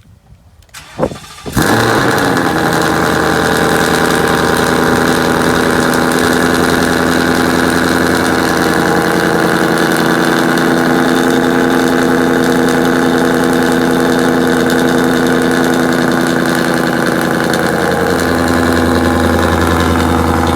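Ford Mustang GT's 5.0 V8 cold-starting through stainless long tube headers and a Ford Performance by Borla catback: it catches sharply with a loud flare about a second and a half in, then settles into a loud, steady fast idle, dropping to a slightly lower idle near the end.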